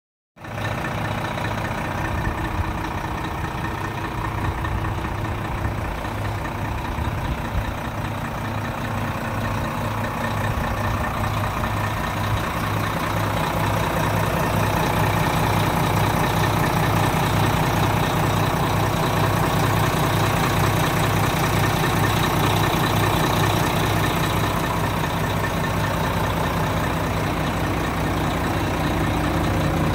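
Renault Lander 460 truck's six-cylinder diesel engine idling steadily with a low, even pulse, growing somewhat louder about halfway through.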